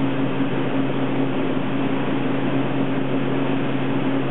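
Steady electric machine hum with a constant low drone, from running photopolymer platemaking equipment.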